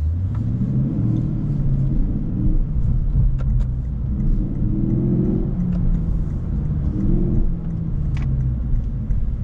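Lexus IS 500's 5.0-litre V8 running under light throttle, heard from inside the cabin, its low note rising and easing off a few times. Part of the engine note in the cabin is sound piped in through the car's speakers rather than from the exhaust.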